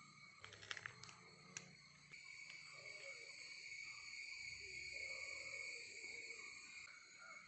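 Faint, steady high-pitched chirring of an insect chorus, with a few sharp clicks about a second in.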